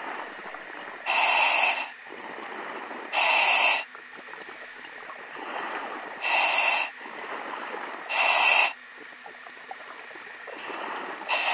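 A diver breathing underwater through a demand regulator: five loud hissing breaths, one every two to three seconds, with a quieter rush of air between them.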